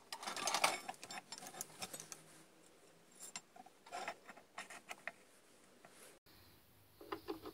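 Faint, scattered metallic clicks and taps from hands working on a metal lathe's carriage, apron and handwheel. There is a small cluster in the first second, then only sparse ticks.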